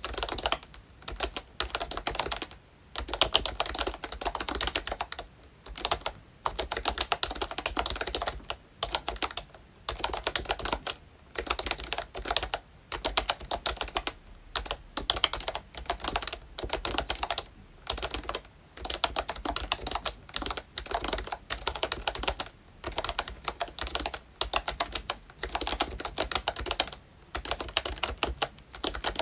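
Typing on a ROYCHE Disney Mickey Mouse retro membrane keyboard with round typewriter-style keycaps: dense runs of key clicks, broken by short pauses every second or two.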